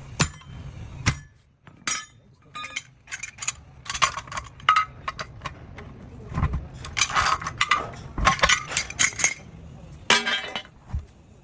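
Irregular metallic clinks and knocks, some ringing briefly, as hand tools strike and scrape on steel during a truck tyre repair. They come in clusters, the thickest between about seven and nine and a half seconds in.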